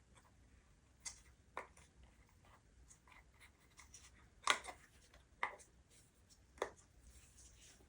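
Small plastic kit parts being handled: five light clicks and knocks, the loudest about four and a half seconds in.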